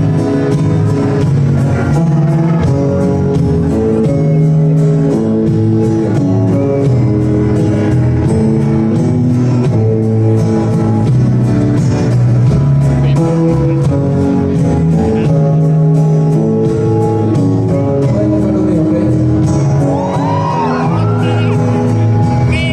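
Live band playing an acoustic-leaning rock song: strummed guitar over bass, with singing.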